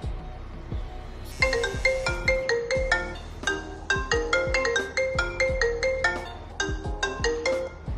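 A phone ringtone, a quick repeating marimba-like melody, plays from about a second and a half in until just before the end, over background music with a deep thudding beat.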